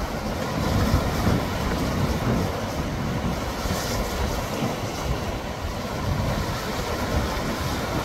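Choppy seawater washing and splashing against a concrete tetrapod wave-breaking block, with a splash about four seconds in, over a steady low rumble of strong wind on the microphone.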